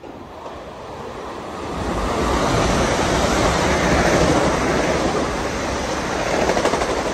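Metro-North electric commuter train passing close by on the adjacent track: an even rushing noise of wheels on rail and moving air that swells about two seconds in and stays loud.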